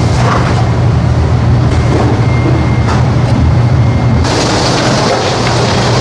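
Steady loud low roar of a commercial kitchen's gas burners and exhaust fans, with a few light clicks of metal tongs against steel trays and a pan. About four seconds in the sound turns brighter and hissier.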